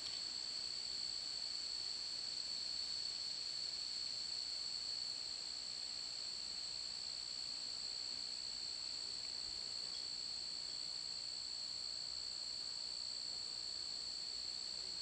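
Steady high-pitched insect trilling at two pitches, typical of crickets, over a faint hiss.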